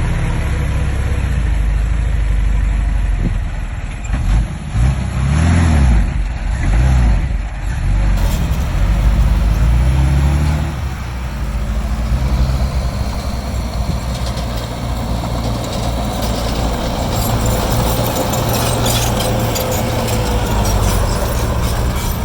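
Heavy diesel construction machinery running, with the engine revving up and down a few seconds in. The sound changes abruptly about eight seconds in, then runs on steadily.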